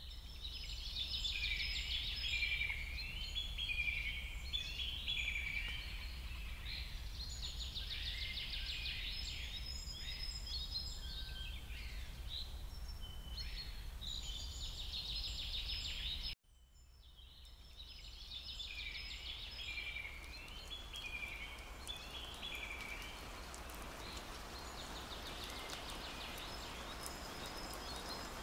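Songbirds singing in forest, a run of varied whistled phrases and trills over a low steady rumble. The sound cuts out about halfway and fades back in with the birdsong again. From about two-thirds in, a steady hiss of rain with scattered drop ticks builds up under the birds.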